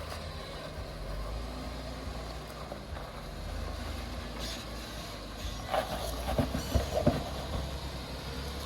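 Jeep engine running low and steady while crawling a rock ledge in low gear, with a quick cluster of sharp knocks about six to seven seconds in.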